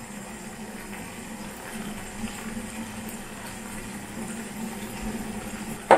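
Steady low hum with a soft, even hiss: a pan of sauce simmering on a gas hob.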